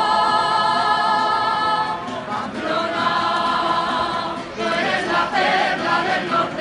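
A group of men and women singing a pasodoble together in the Navarrese jota style. They hold one long note for about two seconds, then move on into a new phrase.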